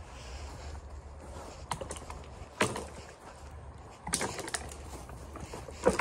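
Footsteps crunching over thin snow and dry pine twigs, with a few sharper cracks: one about two and a half seconds in, a cluster about four seconds in, and the loudest near the end.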